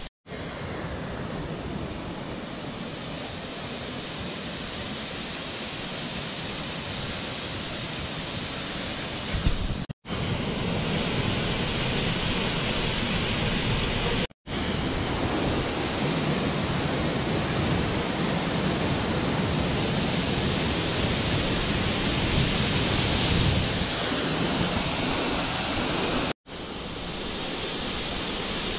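Steady rush of the Triberg waterfalls' cascades. The sound drops out briefly three times at cuts between takes, and there is a short low bump just before the first break.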